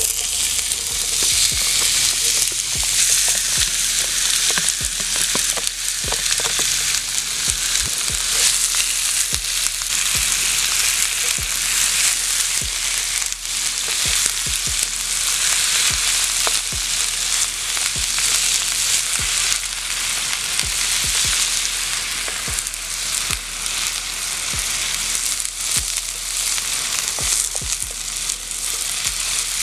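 Chicken thighs and chopped sweet peppers sizzling in hot oil in a frying pan over a wood fire, the loud, steady sizzle setting in as the food drops into the oil. Frequent sharp clicks and taps run through it as a spatula stirs the pan.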